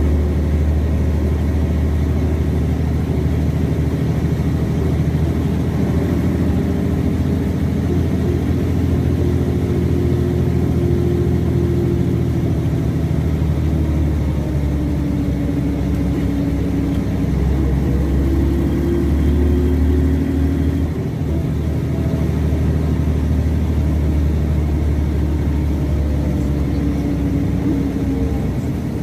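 Mercedes-Benz O305 city bus with its OM707 diesel engine, heard from inside the passenger cabin while under way: a steady low drone with engine notes that rise and fall as the bus speeds up and eases off.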